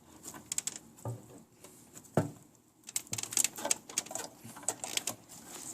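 Clicks and light plastic rattling as a PC power supply's motherboard power connector and its wiring are worked into the motherboard socket. A sharp click comes a little after two seconds, then a quick run of small clicks and ticks.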